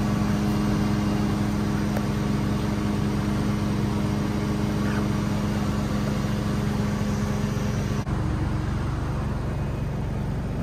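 KTM X-Bow GTX race car's Audi 2.5-litre turbocharged five-cylinder engine idling steadily.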